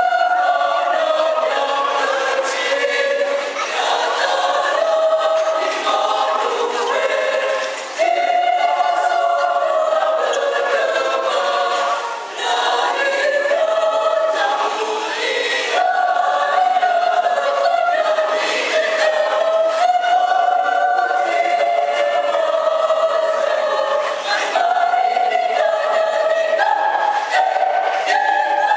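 Mixed choir of men's and women's voices singing in parts, holding notes and moving between chords, with brief dips about eight and twelve seconds in.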